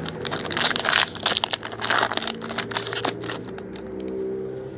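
Foil trading-card pack wrapper torn open and crinkled by hand: a dense run of crackles for about three seconds that thins out near the end.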